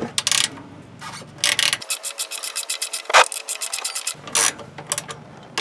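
Ratchet wrench clicking in quick even runs, about ten clicks a second, as a 16 mm socket backs out an oil drain plug, with a few louder knocks of tool on metal.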